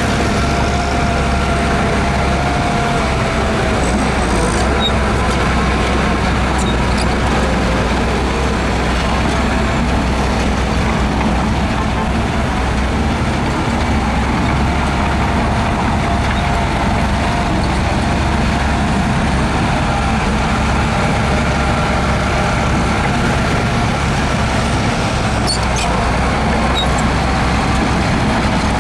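Heavy diesel earthmoving machinery running steadily, its engine drone unbroken, with a few faint ticks.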